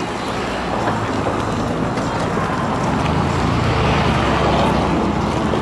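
A crowd walking in procession, footsteps on gravel, under the low steady hum of a vehicle engine running close by that grows louder past the middle.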